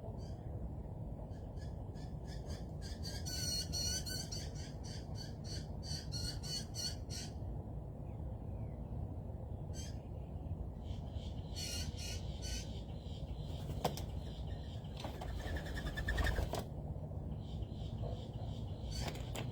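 Birds squawking at a feeder in several bursts of rapid, repeated calls, over a steady low rumble.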